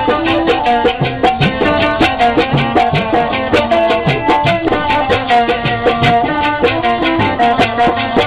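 Pothwari folk music, instrumental: a fast, steady drum beat under a melody of held notes.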